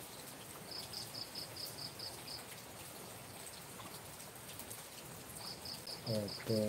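A cricket chirping in two runs of about eight quick, high, evenly spaced pulses, about five a second, over a faint hiss and scattered drips from the rain-wet yard.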